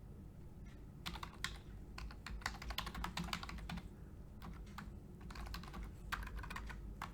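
Typing on a computer keyboard: fast runs of key clicks starting about a second in, with a short pause near the middle before more typing.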